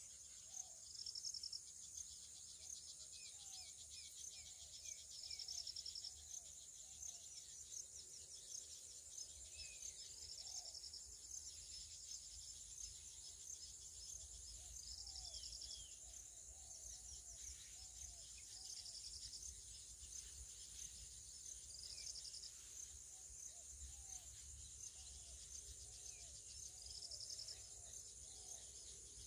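Faint evening insect chorus: a steady high cricket trilling, with a short buzzing trill that repeats every three or four seconds. Scattered short bird calls are heard throughout.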